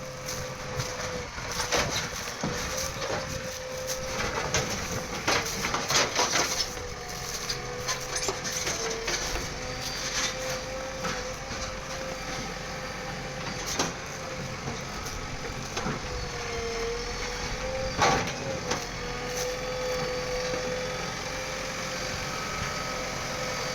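Bulldozer engine running with a steady, slightly wavering whine, while repeated knocks and crunching of demolition debris sound over it, the loudest knock about three-quarters of the way through.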